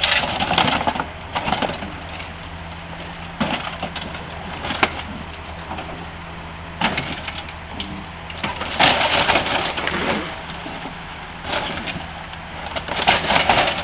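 Komatsu excavator's diesel engine running steadily, with repeated loud bursts of crunching and scraping sheet metal as the machine wrecks an old Dodge car.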